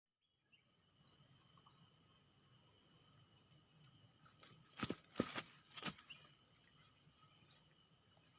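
Faint outdoor ambience: insects holding two steady high tones while a bird gives a short falling call four times. About halfway through come three or four sharp knocks.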